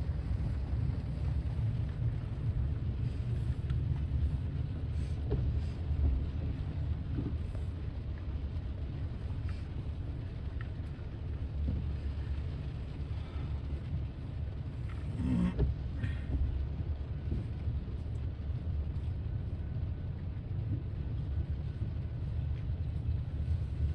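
BNSF grain train's freight cars rolling past, a steady low rumble with a few faint clicks.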